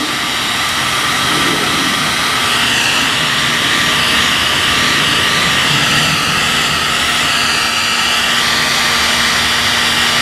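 Electric heat gun on its high setting running steadily: its fan blows hot air in a loud rush with a faint steady whine, heating heat-shrink tubing.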